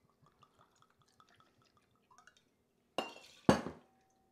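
Mezcal poured into a steel jigger and tipped into a metal cocktail shaker tin: a faint trickle of liquid, then two sharp glass-and-metal clinks about three seconds in, the second leaving a short metallic ring.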